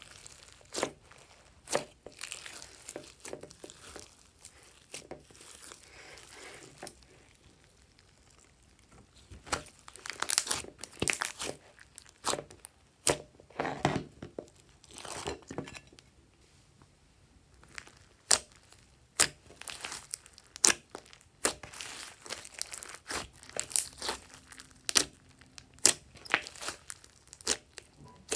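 Glossy slime with glitter mixed in, kneaded and squeezed by hand, giving irregular sticky crackles and sharp pops of trapped air. The pops come in dense runs with a quieter stretch about a third of the way in.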